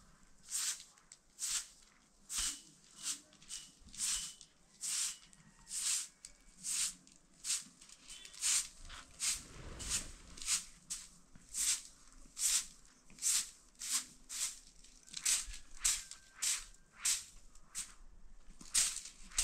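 A straw hand broom sweeping a porch floor in steady, even swishing strokes, about two a second.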